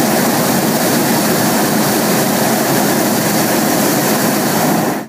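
Hot-air balloon's propane burner firing overhead: a loud, steady roar that cuts off sharply near the end.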